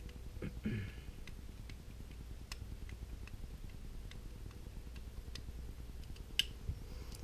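Faint, irregular small metallic ticks as a screwdriver turns out the grip-frame screws of a Ruger Vaquero single-action revolver.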